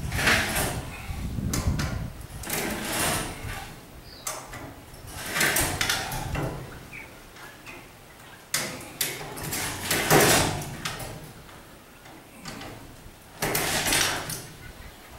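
Chain hoist being worked in repeated pulls, its chain rattling in bursts about a second long every two to three seconds, as it lifts a heavy steel welding table to tip it over.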